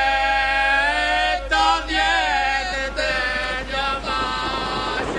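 A single voice chanting in long held notes. It slides up into the first note, then breaks into wavering, ornamented turns about a second and a half in, with a few short breaths between phrases.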